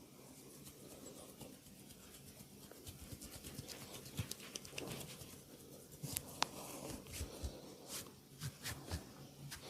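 Massage handwork: hands rubbing over skin or hair with many small, quick snapping clicks, and one sharper crack about six seconds in.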